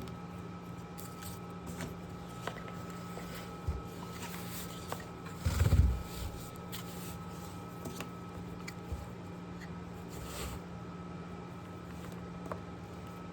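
Hands handling equipment: scattered light clicks and a brief louder rustling bump about halfway through, over a steady electrical hum.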